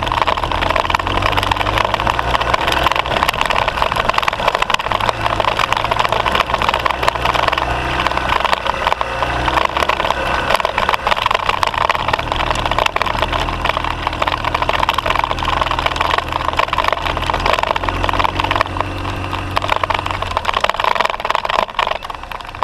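BMW R 1200 GSA's boxer-twin engine pulling the bike up a steep gravel track, heard from a camera mounted on the motorcycle. A loud, even rush of wind and gravel noise covers it. The engine note drops away briefly about twenty seconds in, then picks up again.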